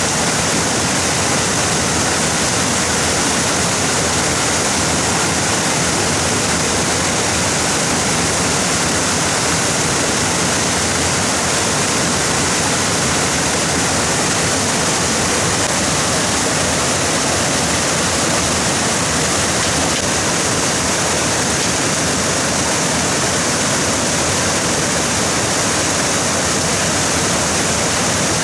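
Stream water rushing, a steady, loud, unbroken rush.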